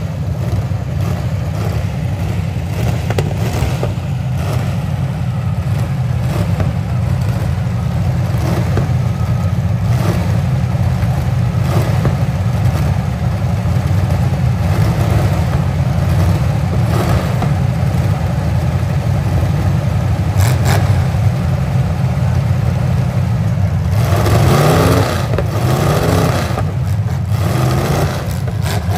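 Full-size V8 demolition derby cars running and revving in a continuous low rumble, with scattered knocks and clanks of metal. For a few seconds near the end, one engine revs up and down hard.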